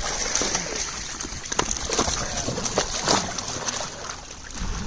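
Pond water splashing and sloshing as a large metal pot full of live silver carp is pushed through shallow water, with irregular sharp splashes throughout.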